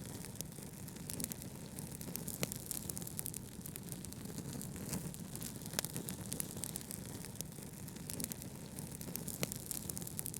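Wood fire crackling in a fireplace, with sharp pops scattered throughout over a steady low brown-noise rumble.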